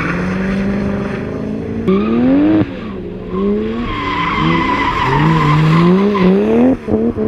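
Drift cars' engines revving up and falling back again and again, with tyres squealing as the cars slide sideways; a car sweeps close past near the end.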